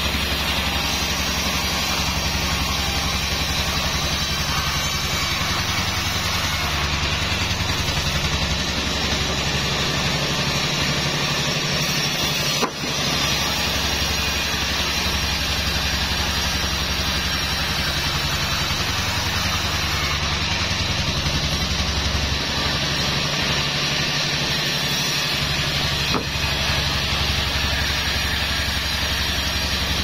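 Sawmill band saw and its drive engine running steadily while a log is fed through the blade and sawn lengthwise: a constant low hum under the sawing noise, with a brief dip about halfway through.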